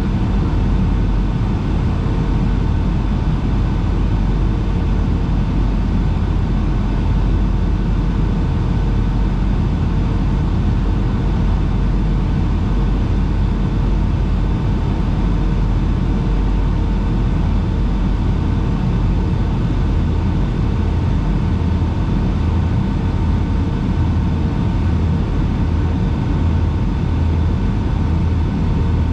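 Steady cabin noise inside a Boeing 757-300 airliner on approach: a deep rumble of the engines and airflow, with a few faint steady hums on top.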